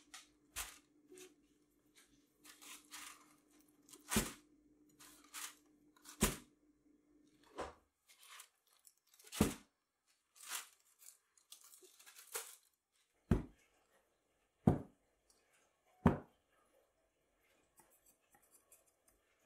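Aluminium foil crinkling and rustling as it is taken off a round metal cake pan, in a run of short crackly bursts. Then three sharp knocks about a second and a half apart, louder than the foil.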